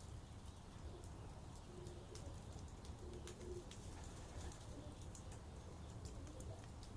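Wood campfire crackling, with many irregular sharp pops over a low steady rumble. A few short low cooing bird calls come in about two and three seconds in.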